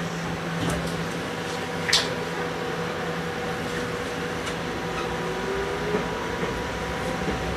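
Nagoya Municipal Subway 3000 series chopper-controlled electric train pulling away from a stop, heard from inside the car: steady whining tones from the chopper control, with a motor tone that rises slowly in pitch as the train gathers speed. A single sharp click about two seconds in.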